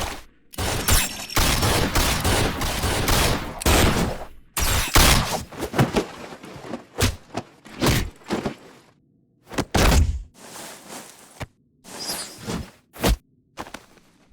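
Fight-scene foley: a rapid, irregular run of heavy thuds, hits and gunshot-like bangs, some packed close together and some single sharp cracks spaced out later on.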